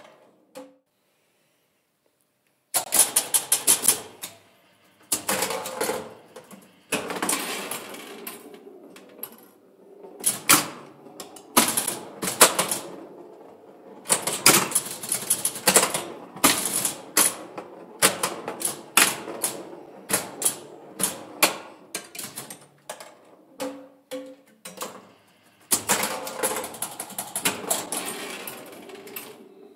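1965 Bally Six Sticks electromechanical pinball machine in play: bursts of rapid mechanical clacking and clicking from its solenoids, relays and score mechanism as the ball scores. After a short quiet spell near the start, the clatter comes in repeated runs.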